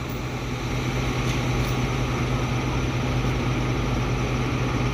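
A truck's diesel engine running steadily, a low even hum that holds one pitch throughout.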